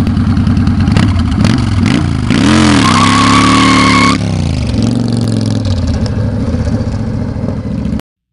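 V-twin cruiser motorcycle revved in two quick blips, then held at high revs for over a second with a steady squeal of the rear tyre spinning in a burnout. The revs then drop and the engine runs steadily as the bike pulls away, cutting off suddenly near the end.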